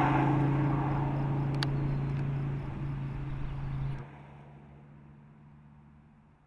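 Dodge Viper SRT's 8.4-litre V10 engine running at a steady pitch, fading away over about four seconds. It then drops off abruptly to a faint hum that dies out.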